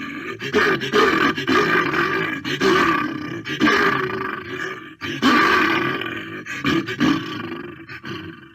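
Bear roar sound effect: a series of deep, growling roars, each starting sharply and then fading, with the last one dying away near the end.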